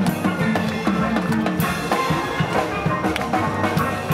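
Steel band playing: steelpans ringing out pitched notes over drums keeping a steady beat.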